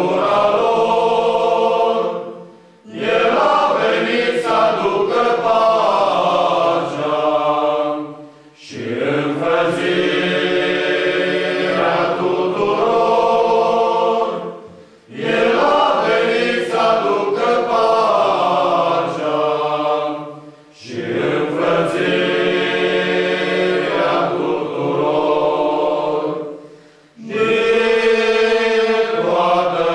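Male choir singing a cappella in long, slow phrases of about six seconds, each separated by a brief pause for breath.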